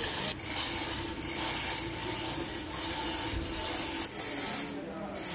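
Manual chain hoist being hauled by its hand chain to lift an engine block: a continuous rattling rasp of chain running through the hoist, dipping in strokes about every three-quarters of a second.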